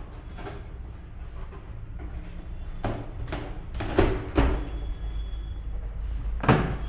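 Large corrugated cardboard carton being handled and pulled open by hand: scraping and rustling of cardboard with several knocks, the loudest about four seconds in and again just before the end.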